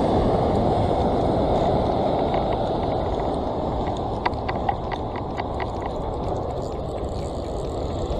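Ocean surf breaking and washing over volcanic rocks, a steady rush of water that is strongest in the first seconds and eases slightly, with a few faint clicks about halfway through.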